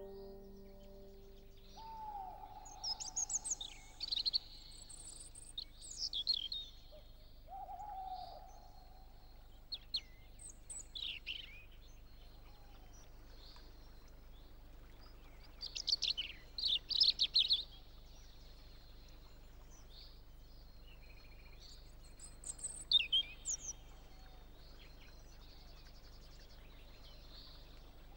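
Wild birds singing and calling: several clusters of short, high chirps and trills, and twice near the start a lower drawn-out call that falls slightly in pitch.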